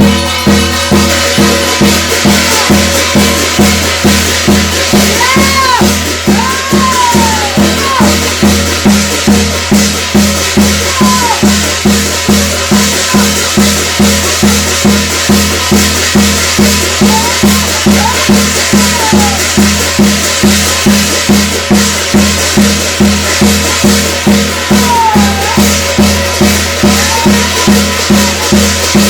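Korean shamanic ritual music: drums and hand cymbals beating a fast, steady rhythm, with a few short gliding notes sounding above it now and then.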